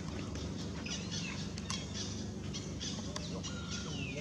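High-pitched animal calls: a few short curving cries about a second in, then near the end a call that slides down in pitch and holds. Scattered sharp clicks and a steady low rumble run underneath.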